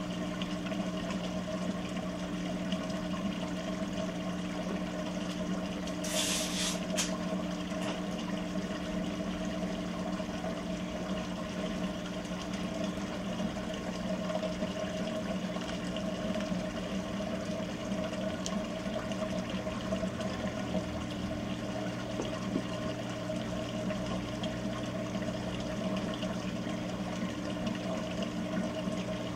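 Whirlpool WTW7300DW top-load washer running its rinse and spin cycle: a steady pump or motor hum with water running through it. A short, louder hiss comes about six seconds in.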